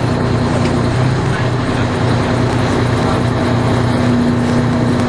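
A large truck engine running steadily at a constant speed, with a steady hum and no revving.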